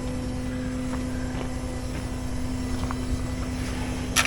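Tow truck's engine running at a steady idle with an even hum. A sharp click comes near the end.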